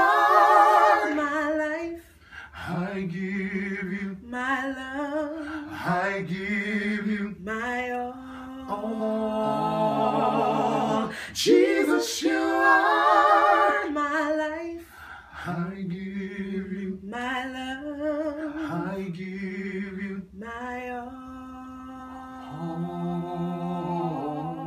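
A small group singing a gospel song a cappella in harmony, with long held notes sung with vibrato.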